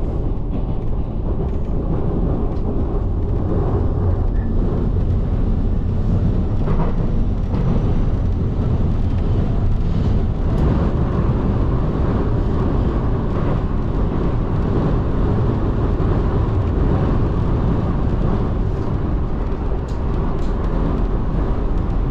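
Aichi Loop Line electric train running between stations, heard from inside the passenger car: a steady low rumble of wheels on rail and motors.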